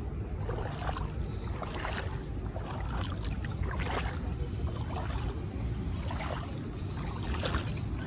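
Floodwater lapping and splashing in small irregular washes, over a steady low rumble of wind on the microphone.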